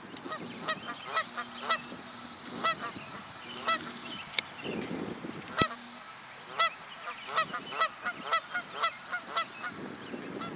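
A flock of geese honking: many short calls, some overlapping, coming at irregular intervals.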